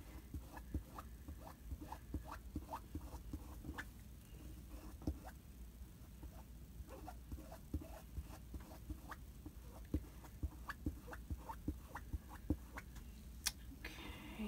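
Squeegee scraping ink across a stencil transfer on a t-shirt: a quick run of short scratchy strokes, a few a second, with a sharper click near the end.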